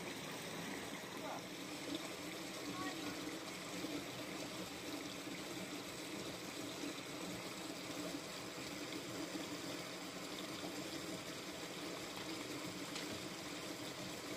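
A stream of water running steadily, a continuous rushing trickle with no breaks.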